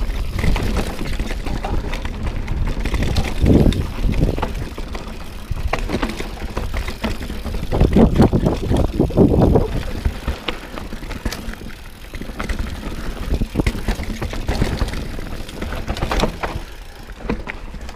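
Mountain bike riding down a dirt forest singletrack: tyres rolling and skidding over dirt and roots, with the bike rattling over bumps. There are louder, rougher stretches about four seconds in and from about eight to ten seconds in.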